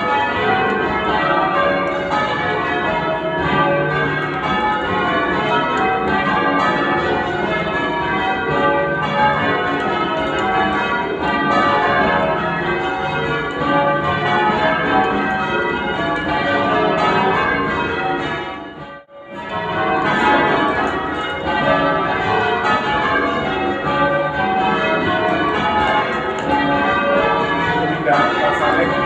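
Church tower bells change ringing: many bells struck one after another in a rapid, shifting order, their tones overlapping. About two-thirds of the way through, the sound drops out suddenly for about a second, then the ringing carries on.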